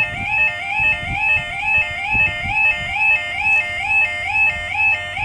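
Level crossing audible warning: a two-tone electronic yodel alarm warbling in an even, repeating cycle about two to three times a second, sounding while the crossing is closed for an approaching train. A fainter, uneven low rumble runs underneath.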